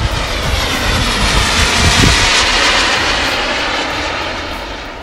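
Turbine-powered RC model Eurofighter Typhoon jet making a pass, its hissing turbine sound swelling to its loudest about two seconds in, then fading away.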